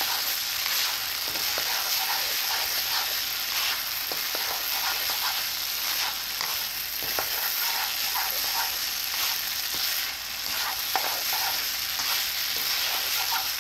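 Fried rice sizzling in a hot pan, with a steady hiss, while a spatula stirs it round and scrapes against the pan in many short strokes.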